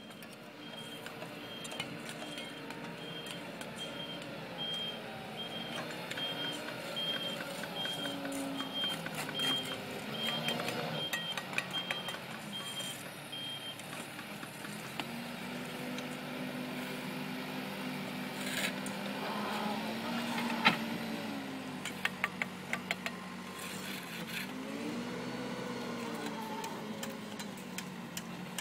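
Truck reversing alarm beeping at a steady pace, about one and a half beeps a second, for the first half, then stopping, over the truck's engine running with its revs rising and falling. Scattered clicks and knocks, with one sharp knock about twenty seconds in.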